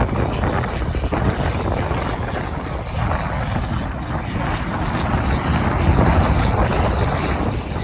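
Harvest machinery, a combine harvester, running steadily under wind buffeting the microphone: a continuous noisy rumble with no distinct events.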